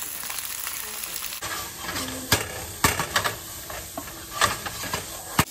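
Green beans sizzling in hot avocado oil in a frying pan, a steady hiss, with several sharp clicks and knocks from about a second and a half in.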